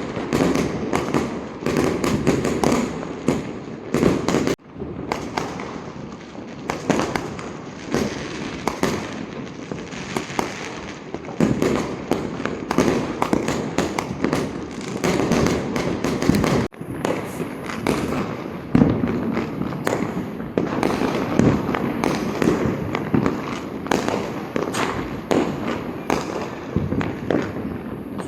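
Diwali firecrackers and fireworks going off in a dense, continuous barrage of overlapping bangs and crackles. There are two brief breaks, about four and a half and about seventeen seconds in.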